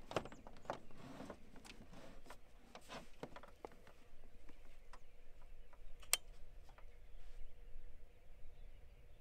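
Quiet pause between rifle shots: scattered faint clicks and light handling noises, with one sharper click about six seconds in.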